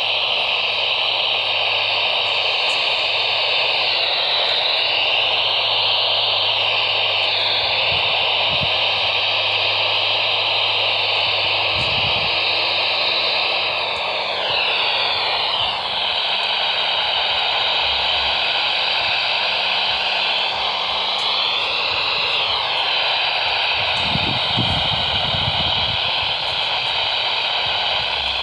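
Steady radio static hiss from a weakly received broadcast, with a few slow swishing shifts in its tone.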